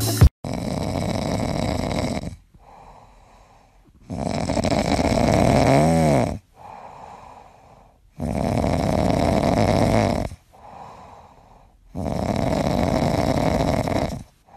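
A sleeping cat snoring: four loud snores of about two seconds each, with a quieter breath between each one, in a slow, even rhythm.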